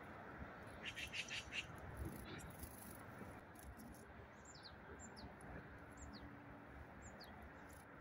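Small songbirds calling: a quick run of chattering notes about a second in, then a string of thin, high call notes, each falling in pitch, about one every half second. Under them runs a steady hum of distant road traffic.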